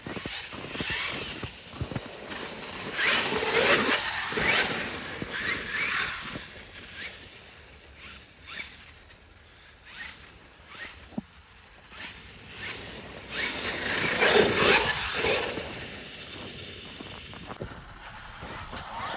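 Traxxas X-Maxx 8S RC truck running over frozen ground: its tyres scrape and crunch across ice and frozen snow. The sound grows louder twice as the truck comes close, with scattered knocks in between.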